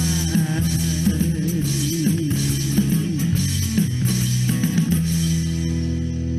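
Closing bars of a rock-style theme song: a guitar line over a drum kit. About five seconds in the drums stop and a held chord rings on.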